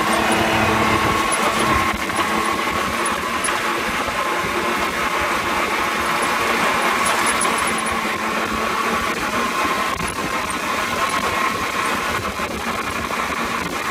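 Off-road buggy engine running steadily under way on a dirt track, with wind and tyre rumble, heard from on board the moving buggy.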